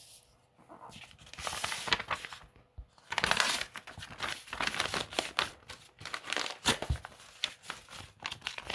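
Irregular crinkling and rustling, like plastic or paper being handled and crumpled, with many small sharp clicks scattered through it.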